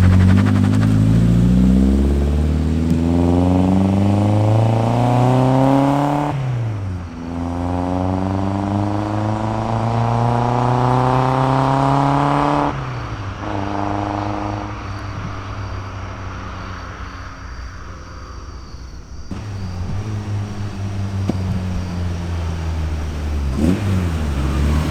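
Car engine accelerating hard through the gears, its pitch climbing and then dropping sharply at two upshifts about six seconds apart. The engine then runs lower and steadier before building again near the end.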